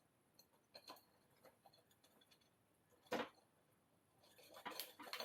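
Quiet handling of small metal heater parts: a few faint clicks, one sharper knock about three seconds in, and a short run of clicks and rattles near the end.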